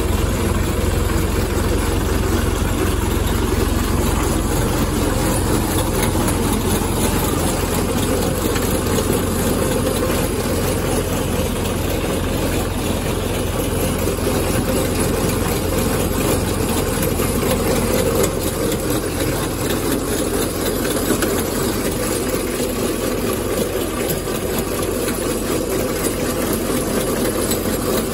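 DF-404 tractor's diesel engine idling steadily.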